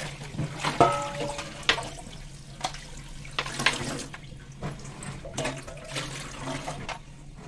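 Tap water running into a steel sink while cut pointed gourd and potato pieces are rinsed by hand in a plastic colander: steady splashing with irregular knocks and clatter, and a brief ringing knock about a second in.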